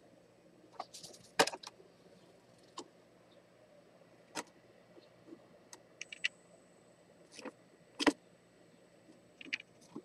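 Irregular sharp clicks and taps, about a dozen, the two loudest about one and a half and eight seconds in, over a faint steady hum.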